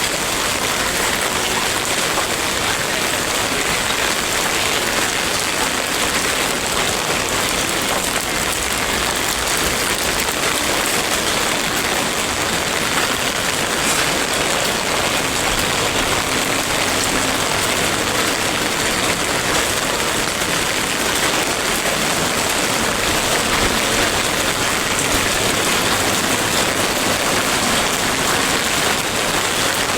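Steady rain falling, a loud, even hiss with no break.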